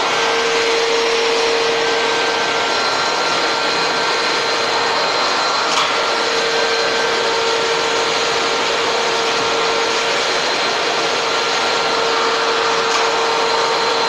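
Drum-type canister vacuum cleaner running steadily: a loud, even rushing noise of air through the hose, with a constant motor whine.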